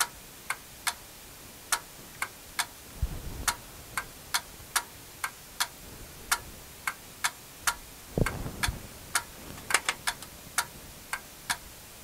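Sharp clicks about two a second, unevenly spaced and bunched briefly near the end, with two low thuds about three and eight seconds in.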